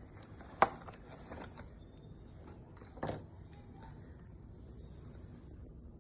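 Small handling sounds: a sharp click a little over half a second in, a duller knock about three seconds in, and light rustling and ticking in between.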